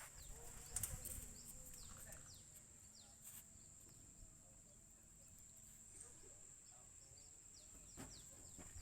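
Near silence: faint outdoor ambience with a steady high whine and scattered short chirps.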